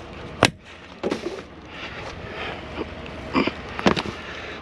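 Several sharp knocks and clatters of scrap items being handled and loaded, over a steady hiss. The loudest knock comes about half a second in, and a pair of knocks comes a little after three seconds.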